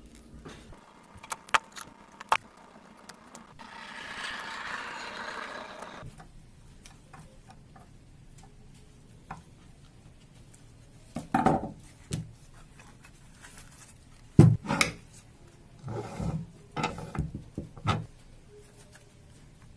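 Workshop handling noises: a few sharp clicks, then a rubbing, scraping sound lasting about two and a half seconds, and in the second half a series of knocks and clunks as parts are set down and worked.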